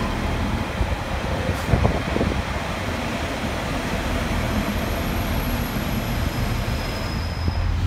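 Pacer diesel railbus running into the platform: a steady rumble of its engine and wheels on the rails, with a few knocks about two seconds in and a faint thin high whine through the second half.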